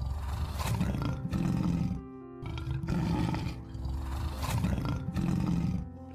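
Lion roaring: two runs of low, rough grunting calls, the second starting about two and a half seconds in, over background music.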